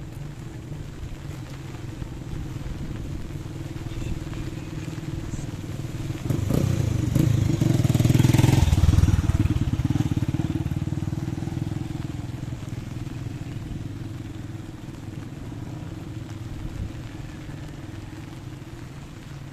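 A motor vehicle passes close by on a street, swelling about six seconds in, loudest a couple of seconds later, then fading away. Under it runs a steady low engine hum of traffic.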